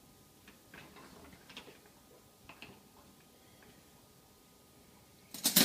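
Dishes being unloaded from a dishwasher: a few faint, scattered clinks and taps, then a louder clatter of dishes just before the end.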